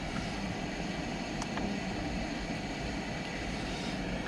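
Steady, even background noise with no distinct pitch, like a distant traffic or fan hum, with two or three faint clicks.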